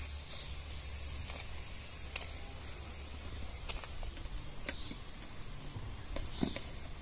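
Thin fish-curry gravy boiling in a metal kadhai with a steady hiss, while pieces of fried rewa fish are dropped into it, giving a few scattered light clicks and splashes.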